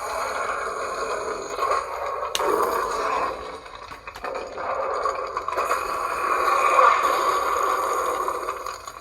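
Lightsaber sound font played through the small speaker in a Proffieboard-driven saber hilt: a steady hum that swells and fades as the blade is swung, with a sharp click about two and a half seconds in.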